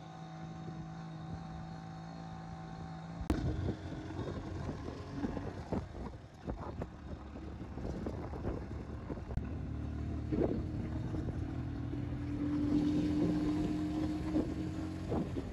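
Small loader vehicle's engine running while under way. Its pitch shifts suddenly about three seconds in and rises near the end. Scattered knocks and rattles come from driving over the rough, unpaved road.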